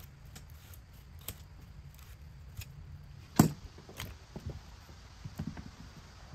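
Light clicks of a handheld slicer cutting potato slices onto a wooden board, then a sharp knock about three and a half seconds in, followed by soft taps as potato slices are dropped into a glass bowl.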